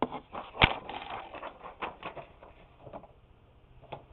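Irregular light clicks and taps of small hard objects being handled, with one sharper knock about half a second in.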